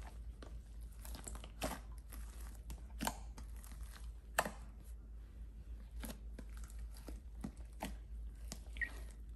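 Soft purple slime being kneaded, stretched and folded by hand: irregular sticky crackles and pops, a dozen or so, over a steady low hum.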